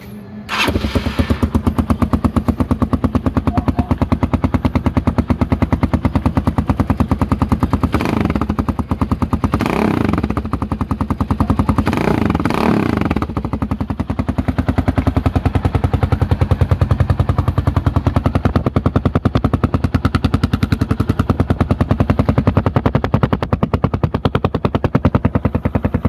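Rusi Sigma 250 motorcycle engine running through a LeoVince aftermarket muffler with its silencer insert fitted, idling with a steady exhaust beat. A few short throttle blips rise and fall in the middle, then it settles back to idle.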